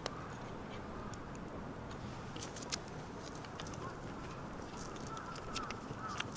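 Wood fire crackling, with scattered sharp pops over a steady low hiss.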